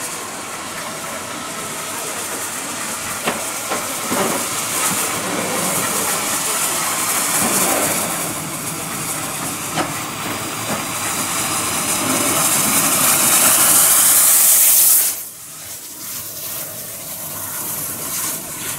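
Hunslet-built J94 Austerity saddle tank steam locomotive hissing steam as it moves slowly beneath the footbridge, with a few knocks. The hiss builds to its loudest, then drops away suddenly about fifteen seconds in.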